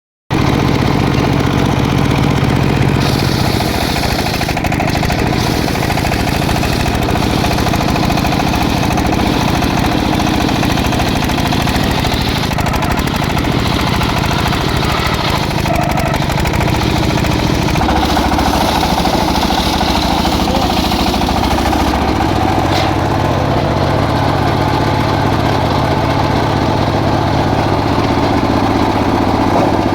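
Engine of a circular sawmill running steadily, with a higher hiss that comes and goes over it, strongest a few seconds in and again about two-thirds of the way through.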